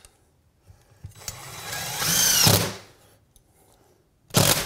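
Cordless drill running into the wall through a steel shelf bracket's lower hole. The motor runs for about a second and a half, its pitch rising and then sagging as it bites before it stops. A brief second burst comes near the end.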